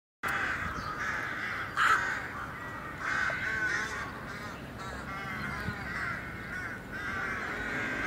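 Rooks cawing: many overlapping calls from a flock, with one louder call about two seconds in.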